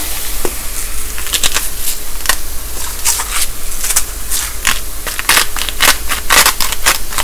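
Hand-twisted spice grinder crunching, a run of irregular gritty cracks that grow denser after about three seconds, over a steady sizzle from mushrooms browning in butter in the skillet.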